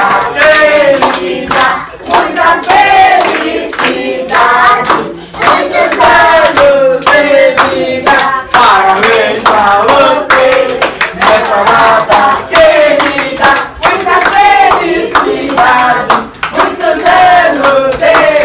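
A group of people singing together, clapping their hands in time.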